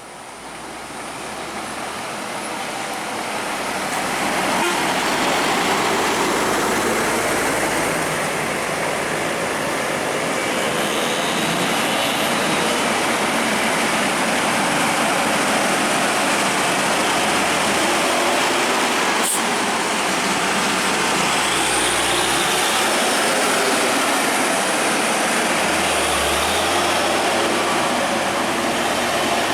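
Heavy truck's engine and road noise, a loud steady rush that builds over the first few seconds and then holds.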